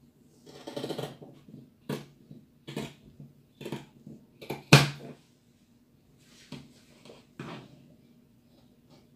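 Scissors cutting through Ankara cotton print fabric in a series of separate snips, roughly one a second, with one sharper, louder snip about halfway through.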